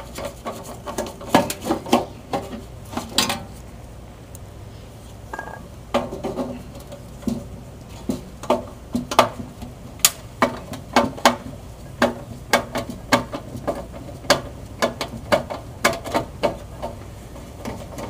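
Irregular metallic clicks and knocks from a galvanized sheet-metal blower housing being handled while the screws holding its top channel are taken out.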